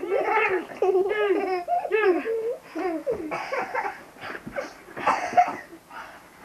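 A small child squealing and shrieking during rough-and-tumble play, a fast run of high cries that rise and fall in the first couple of seconds, then more broken, breathy calls.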